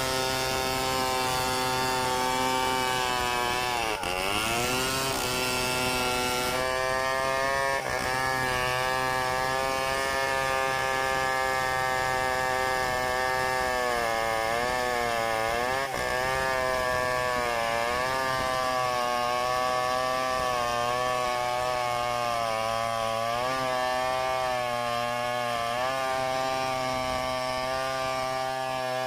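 Chainsaw cutting wood, the engine running hard and steady, its pitch dipping and recovering several times as it bogs under the load of the cut.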